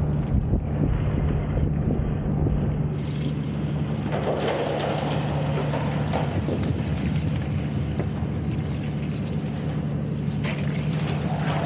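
Engine-driven opal agitator running steadily with a constant hum. Wind buffets the microphone for the first three seconds or so.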